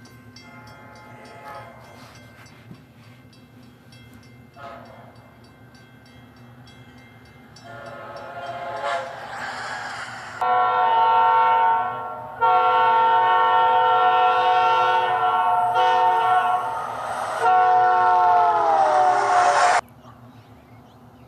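Amtrak locomotive's multi-chime air horn: faint at first, then swelling into loud, long chord blasts with brief gaps between them. In the last blast the chord slides lower in pitch before cutting off sharply.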